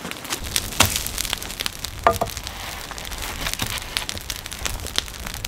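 Brush fire of burning spruce boughs crackling, with irregular sharp pops over a steady hiss. A short squeak about two seconds in.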